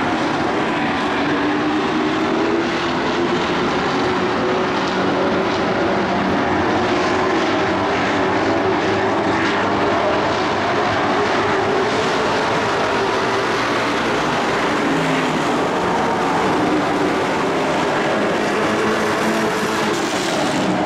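Engines of a pack of dirt-track race trucks running at speed around the oval: a continuous loud drone whose pitch wavers up and down as the trucks go through the turns.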